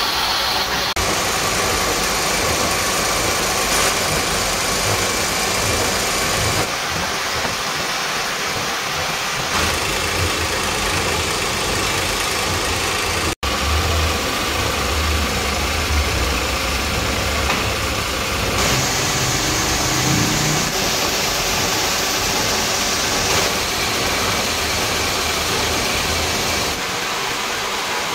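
Gear hobbing machine running, its cutter cutting teeth into a steel gear blank under cutting oil: a steady machining noise. The noise shifts abruptly several times and breaks off for an instant about thirteen seconds in.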